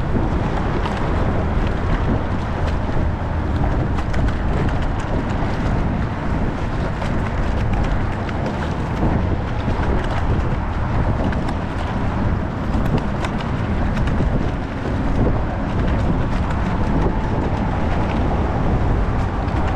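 Steady wind buffeting the microphone as the rowing eight moves, with a few faint, irregular clicks.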